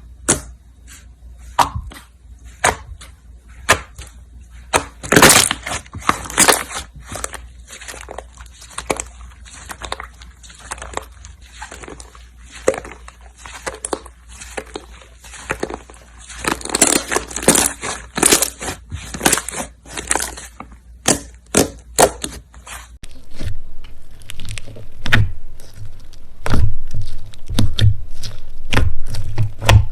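Slime being squeezed and pressed by hand, giving irregular crackling clicks and pops. About two-thirds of the way through the sound changes, with louder pops over a low steady hum.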